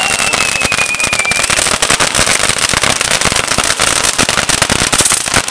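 Fireworks going off on a fireworks frame carried on a person's back: rapid, continuous crackling and popping of firecrackers and spark fountains. A high whistle slides down in pitch over the first second and a half.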